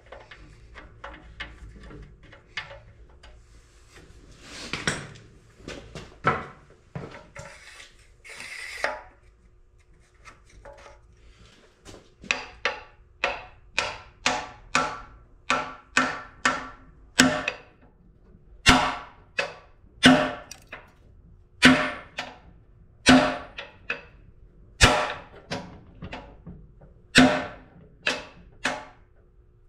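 Hammer blows on a cam bearing driver tool, knocking a bearing out of a CAT D4D bulldozer engine block. There are lighter clicks and a couple of brief scrapes at first. From about twelve seconds in comes a long run of sharp metal strikes with a short ring, about one to two a second, growing heavier after the first several.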